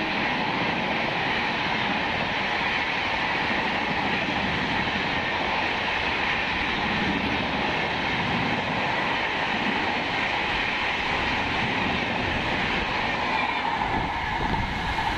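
Superfast express train of LHB coaches passing at speed through a station without stopping: a steady, unbroken rush of coaches and wheels on the rails, mixed with heavy rain.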